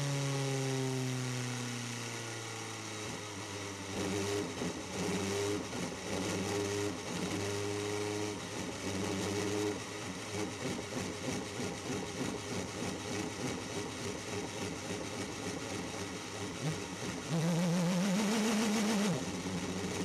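Onboard sound of the Toyota TS040 Hybrid Le Mans prototype's 3.7-litre V8. The engine note falls as the car eases off at the start, then runs at low, steady revs, with a brief rise and fall in revs near the end.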